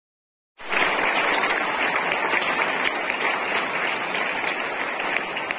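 Crowd applauding: dense, steady clapping that starts abruptly about half a second in.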